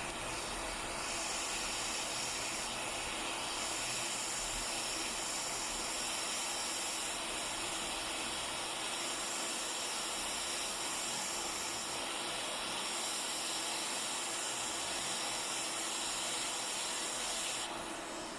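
Hot air rework gun blowing a steady hiss, heating the phone to soften the screen adhesive. It cuts off shortly before the end.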